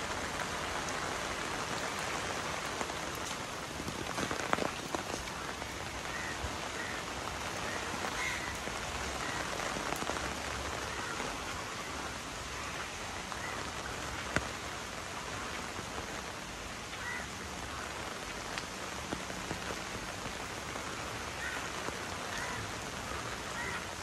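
Steady rainfall hissing on a wet lane, with a few sharper raindrop taps now and then and faint short chirps scattered through it.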